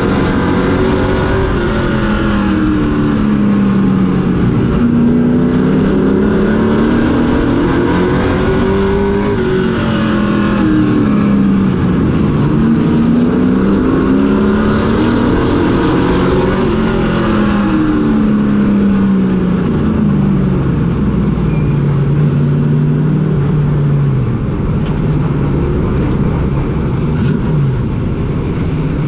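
Pro Truck race truck's engine heard from on board, rising in pitch under throttle and falling off again in repeating cycles of about six to seven seconds as it runs laps. About twenty seconds in, the revving settles into a lower, steadier drone.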